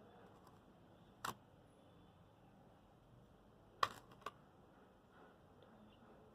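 Three short, sharp clicks of kitchenware, one about a second in and two close together near four seconds in, over near silence.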